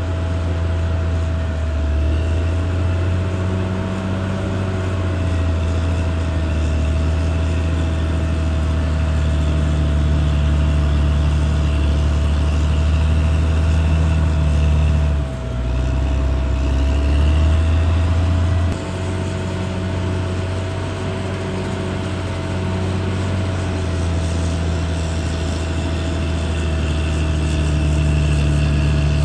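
Caterpillar D6R XL bulldozer's diesel engine running steadily with a deep drone and a thin steady whine above it. The engine note dips briefly about halfway through, then settles into a slightly different pitch a few seconds later.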